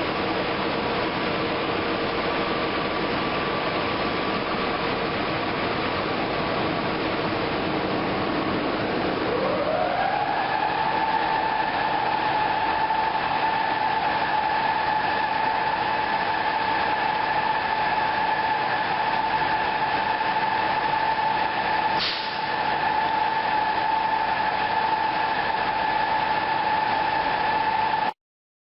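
WCG2 electric locomotive's blowers running with a steady mechanical hum. About nine seconds in, another blower motor starts, its whine rising in pitch and settling into a steady high whine. There is a brief click about 22 seconds in, and the sound cuts off abruptly near the end.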